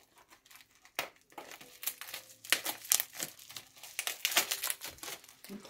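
Scissors snipping through plastic bubble wrap, then the wrap crinkling and rustling in irregular crackles as it is pulled open by hand.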